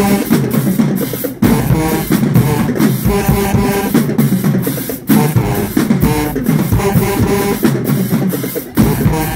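Marching band playing loudly, with drums and horns together; the music breaks off for a moment about every three to four seconds, between phrases.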